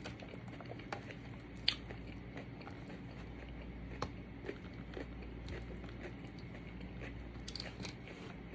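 A person chewing a mouthful of chicken Caesar salad close to the microphone: quiet chewing with scattered short crunches and mouth clicks.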